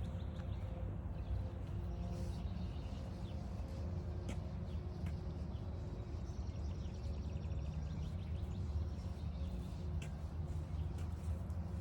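Faint songbirds chirping, with a short rapid trill partway through, over a steady low rumble.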